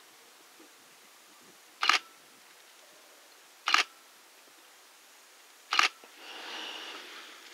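Camera shutter firing three times, about two seconds apart, each a quick double click. A soft hiss of noise swells after the third click.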